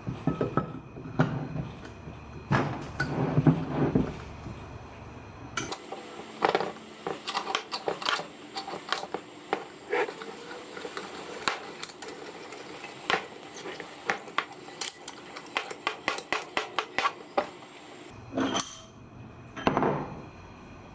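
Metal parts of an old cast bench vise clinking and knocking as it is handled and reassembled, with many sharp clicks in quick succession through the middle.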